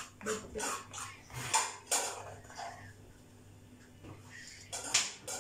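Dishes and metal utensils clattering at a kitchen counter: irregular clinks and knocks, bunched in the first two seconds and again near the end, over a faint steady hum.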